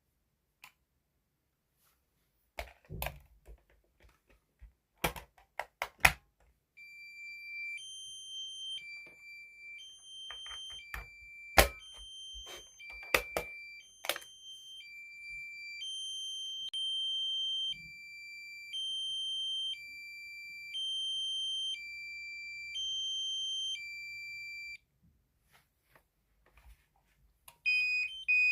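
Clicks and knocks, then an electronic alarm sounder on a security and fire-alarm panel sounds a high-pitched two-tone alternating signal. It switches tone about once a second, with more clicks over it, then stops. Near the end a faster two-tone alarm starts.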